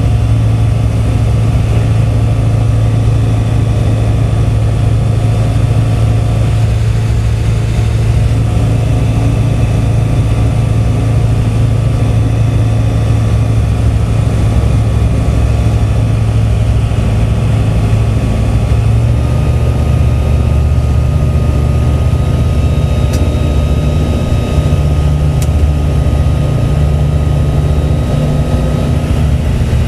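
Piston engine and propeller of a Savage taildragger ultralight in flight, heard from inside the cockpit: a steady drone over wind rush. Its note steps slightly higher about two-thirds of the way through.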